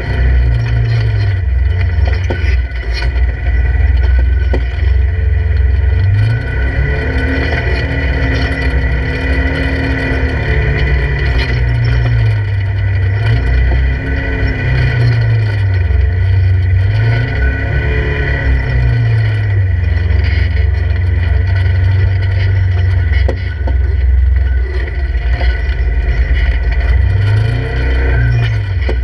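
Polaris RZR 1000's parallel-twin engine heard from inside the open cab, revving up and dropping back again and again as the side-by-side picks its way over a rocky wash. A steady high whine runs over the engine note.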